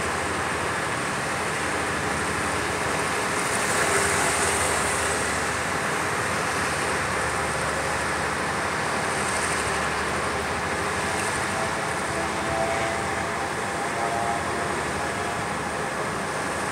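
Steady road-traffic noise, a continuous even hiss that swells slightly about four seconds in.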